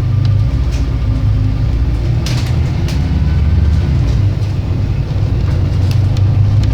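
Diesel engine of an Alexander Dennis Enviro 300 bus on a MAN chassis, running with a steady low rumble, with a few short sharp clicks or rattles over it.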